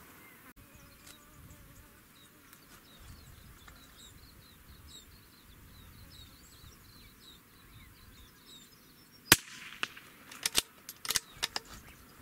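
A single shot from a CZ 455 bolt-action .22LR rifle firing standard-velocity rounds, a sharp crack about nine seconds in. A quick run of smaller sharp clicks follows, typical of the bolt being worked to chamber the next round. Faint bird chirps are heard before the shot.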